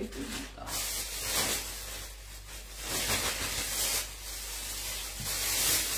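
Leafy siling labuyo (bird's-eye chili) stems rustling and crackling as they are handled and their leaves and fruits stripped off, in uneven surges. A low, steady hum runs underneath.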